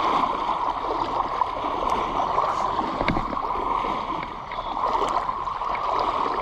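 Creek water running steadily over rocks, a continuous rushing hiss, with one brief tick about three seconds in.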